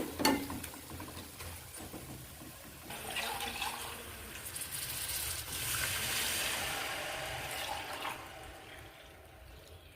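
Water being poured into a cooking pot, a splashing flow that grows stronger about three seconds in and tails off near the end.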